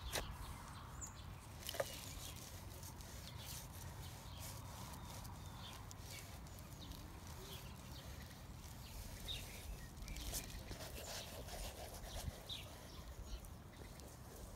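Quiet outdoor ambience: a steady low rumble with a few short, faint bird chirps scattered through it.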